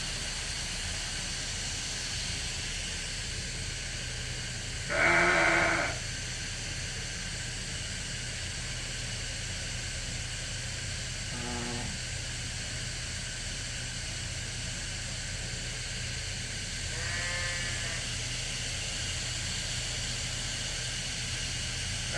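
Sheep bleating three times, the loudest about five seconds in, a short faint one near the middle and another about two-thirds through, over a steady low hum.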